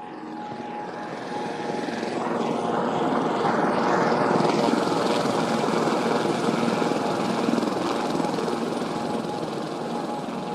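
Helicopter sound effect, its rotor and engine noise swelling to a peak about four seconds in and then slowly fading, over sustained tones of a film score.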